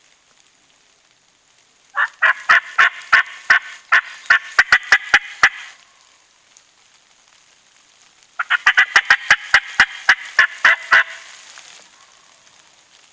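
Two loud runs of rapid, raspy turkey calling, each a few seconds long, the notes coming faster as each run goes on.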